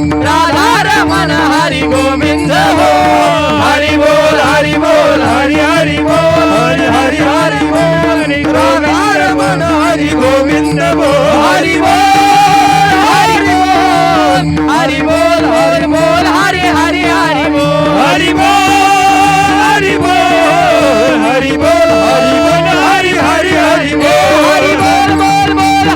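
Marathi kirtan devotional music: a melodic sung line over a steady held drone, with percussion keeping a regular beat.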